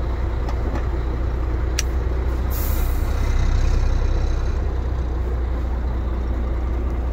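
MAN 28.464 truck's straight-six diesel engine idling steadily, heard from inside the cab. About two and a half seconds in, the truck's air system gives a short hiss of released compressed air that fades out, after a few light clicks.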